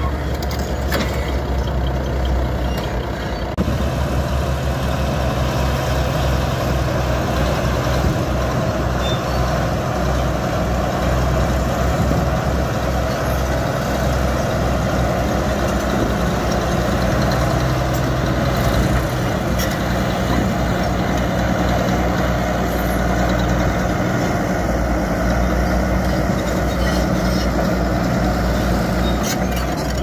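Heavy diesel engines of Komatsu D85A-18 crawler bulldozers running steadily under load as they push earth with their blades.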